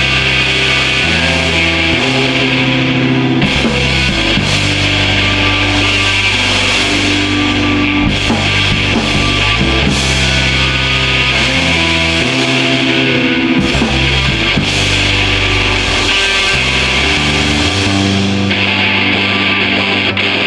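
Live punk rock band playing an instrumental passage: electric guitars and a drum kit with a steady wash of cymbals over a bass line that moves between notes every second or two.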